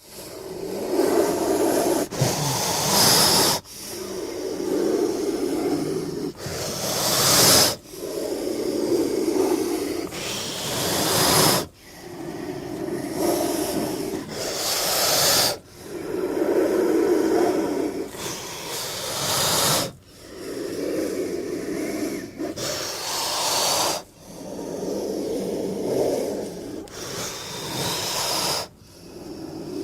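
A king cobra hissing over and over, about one hiss every four seconds. Each hiss has a lower, breathy part followed by a sharper high part.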